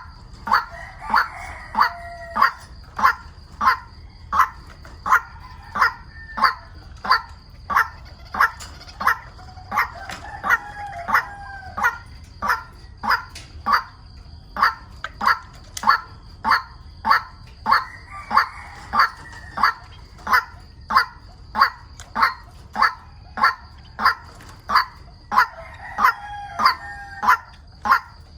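A recorded white-breasted waterhen call played on a loop through a battery-powered bird-call speaker: short, sharp notes repeated evenly about one and a half times a second, with a longer wavering call about every eight seconds. A thin steady electronic whine runs underneath.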